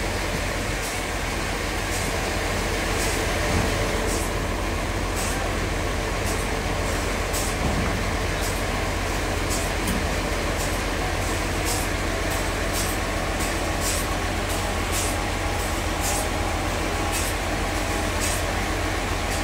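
Large sawmill bandsaw running: a steady mechanical hum with short high-pitched ticks at uneven intervals, about one or two a second.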